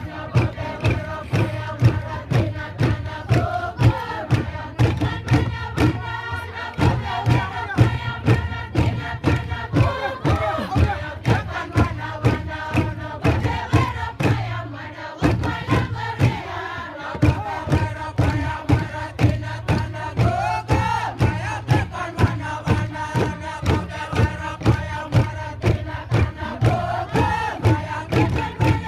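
Traditional East New Britain dance music: a group chanting together over a steady beat of struck percussion. The music breaks off briefly about halfway through, then picks up again.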